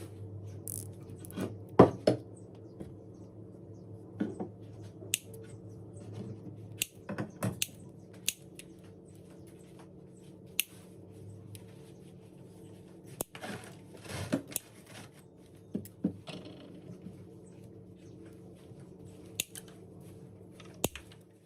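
Electrical wire being worked by hand with small tools: irregular sharp clicks and snips, the loudest about two seconds in, over a steady low hum.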